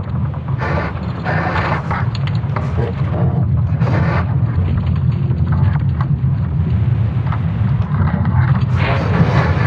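Sonification of Earth's magnetic field during the Laschamp geomagnetic excursion: a deep, steady rumble with irregular creaking and crackling bursts laid over it. The soundscape is built from natural noises such as falling rocks and creaking wood.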